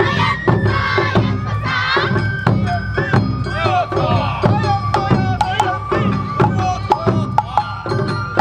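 Awa Odori festival music played live: a bamboo-flute melody with held and sliding notes over steady drumming and frequent sharp percussion strikes.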